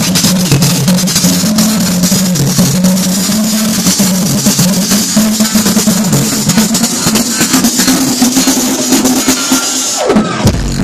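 Dance music with a busy, fast drum beat over a steady bass line. Near the end the beat drops out under a falling pitch sweep and a deep bass comes in.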